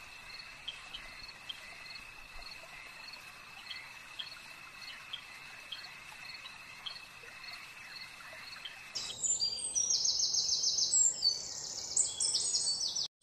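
Night insect ambience: crickets keep up a steady high trill with regular chirps. About nine seconds in it switches to louder birdsong, with many birds chirping rapidly, and this stops abruptly just before the end.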